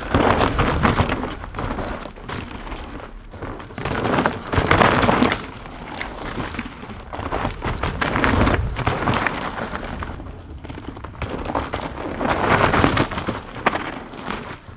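Hardtail mountain bike's tyres crunching and skidding over loose, dry trail dirt, with crackling grit and rattling. The sound swells to a peak about every four seconds.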